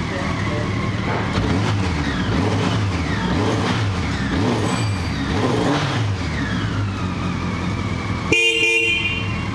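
Honda CB650SC Nighthawk's air-cooled inline-four engine running, with the throttle blipped several times so the revs rise and fall. About eight seconds in, the motorcycle's horn sounds once, briefly.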